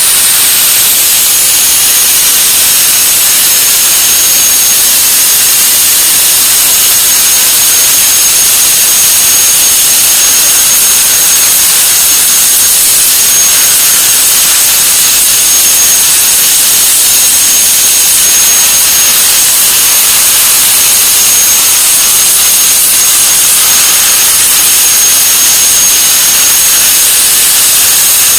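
CNC plasma torch cutting through 50 mm plate: a loud, steady hiss from the arc and gas jet, with a thin high-pitched whine held over it.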